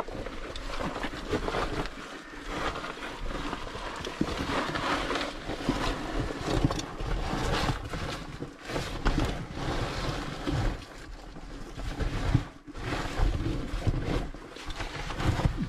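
Continuous rustling and scraping of a caver's oversuit and gear moving close to the microphone, with uneven bumps and a low rumble of handling noise.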